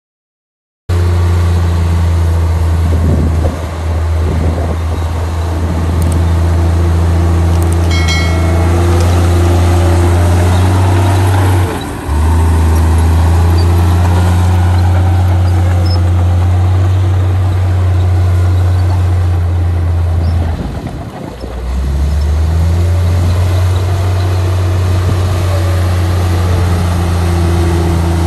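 Diesel engine of a Komatsu crawler bulldozer running steadily under load with a deep, low hum while it pushes soil. The engine note dips briefly twice, about a third and about three-quarters of the way through. A short high squeal comes about eight seconds in.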